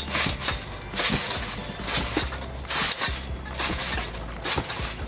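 Trampoline being bounced on: the springs clink and jangle and the mat thumps with each bounce, about once a second.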